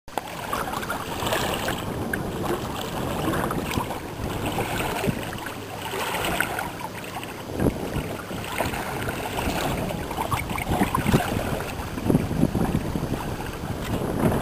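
Water rushing and splashing along the hull of a sailing kayak, mixed with wind buffeting the microphone, rising and falling in surges. A few sharper slaps or knocks come in the second half.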